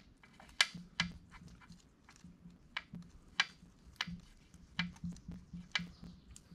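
A dozen or so light, irregular clicks and taps of small metal engine parts being handled and fitted during engine assembly.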